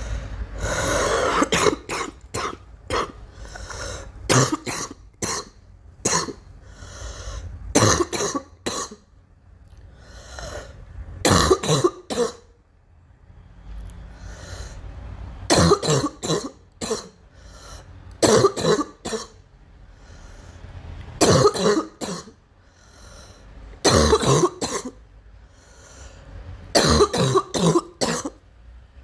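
A girl coughing in repeated fits, each fit a few quick, hard coughs, with a new fit every few seconds.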